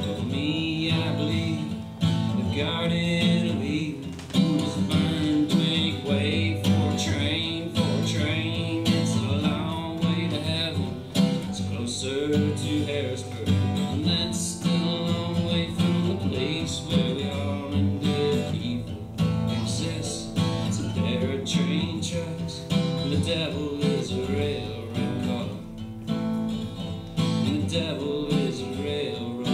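Acoustic guitar strumming through an instrumental passage of a live folk song, with no singing.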